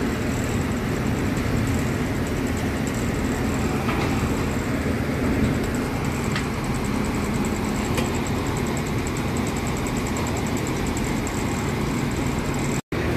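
Tadano ATF 160G-5 all-terrain crane's diesel engine running steadily close by, a low rumble with a faint, pulsing high whine over it. The sound cuts out for an instant near the end.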